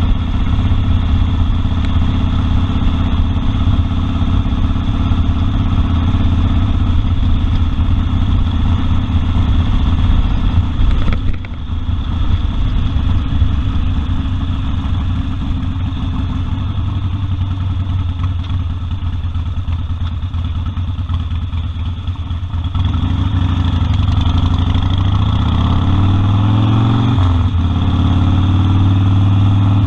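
Harley-Davidson Sportster 1200's air-cooled V-twin running steadily under way. About eleven seconds in the throttle briefly closes. Later the engine pulls up in pitch, drops off for an upshift, and rises again.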